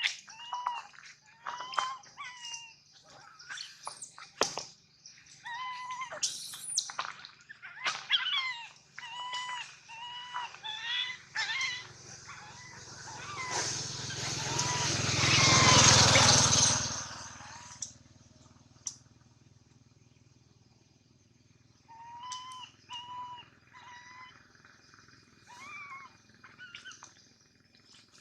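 Baby monkey crying in short, high calls repeated over and over. About halfway through, a loud rushing noise swells up and dies away. The cries stop for a few seconds and start again near the end.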